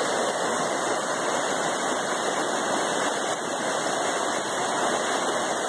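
River water running, a steady, even rushing noise with no distinct events.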